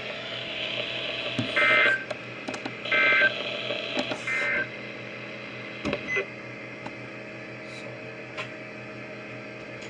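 Emergency Alert System end-of-message data bursts: three short, identical warbling two-tone digital squawks about a second apart, signalling that the alert is over. After them comes a low steady broadcast hum with a few faint clicks.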